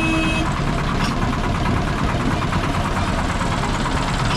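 An engine running steadily, with a constant low rumble and vibration.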